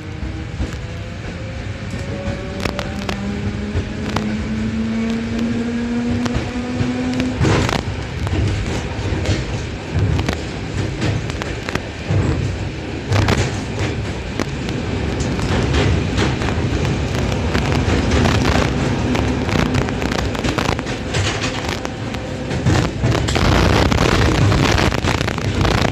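ED4M electric multiple unit accelerating: its traction motors whine, rising in pitch over the first seven or eight seconds, then the running noise of the wheels on the rails grows louder as the train gathers speed. Many sharp crackles come through, the rustling of a faulty phone microphone.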